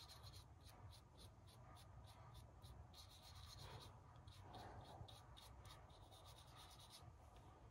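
Very faint, quick scratchy strokes of a small brush painting sealant onto a diesel injector, repeating several times a second.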